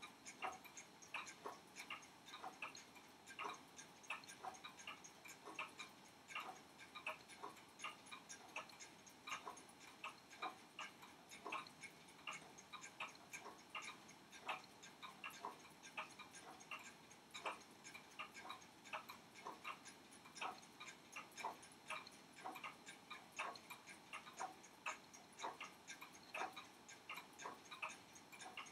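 Faint, steady ticking of a mechanical timepiece's clockwork, several short sharp ticks a second.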